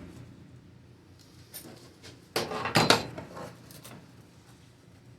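Metal clanking and clinking as tools and sheet-metal parts are handled, with a quick cluster of knocks about two and a half seconds in and a few lighter clinks around it.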